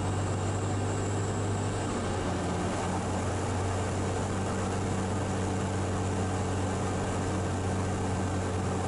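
Cirrus SR22's six-cylinder piston engine and propeller droning steadily in flight as the plane starts down on approach.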